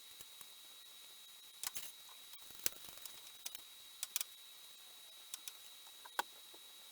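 Faint, scattered light clicks and taps, about eight in all, the sharpest near the middle and about six seconds in, over a faint steady high-pitched whine.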